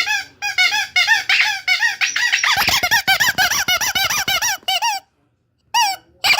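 A small hand-squeezed horn squeaked over and over in quick succession, each squeak a short high rise and fall in pitch, several a second. About two and a half seconds in it gets faster and louder, then cuts off abruptly for under a second before the squeaking starts again.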